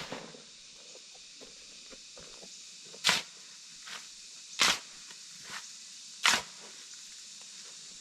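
Three loud, sharp knocks about a second and a half apart, with a few fainter taps between them, over a steady high hiss.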